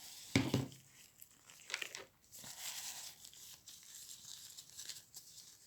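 Packaging of an isopropyl alcohol lens-cleaning wipe being torn and crinkled as it is opened, in short, irregular rustles.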